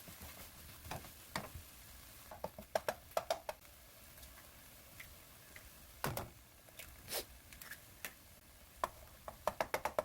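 Scattered short clicks and taps of utensils against dishes, several in quick clusters, with one heavier knock about six seconds in.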